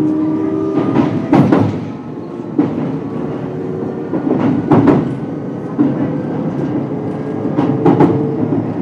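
JR West 223-0 series electric train running, heard from on board: the Hitachi IGBT-VVVF inverter and traction motors whine with steady tones that fade out about a second and a half in and come back faintly around four seconds in. Underneath is a rumble with repeated clicks from the wheels over the rail joints.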